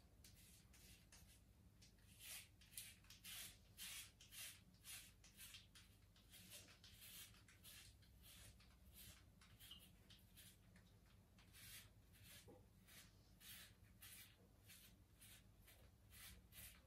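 Multi-blade cartridge razor scraping over a lathered scalp in short, faint strokes, about two a second, each a soft rasp of the blades cutting stubble.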